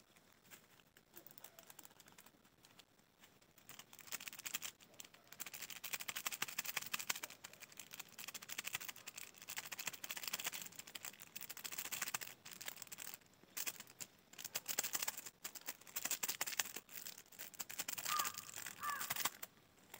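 Plastic spice sachet crinkling in the hands as it is torn open and emptied over the pot, a long run of quick, uneven crackles that starts a few seconds in and stops just before the end.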